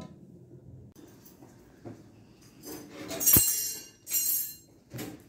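A metal spoon clinking against a steel cooking pot: a few separate ringing clinks, the loudest about three seconds in.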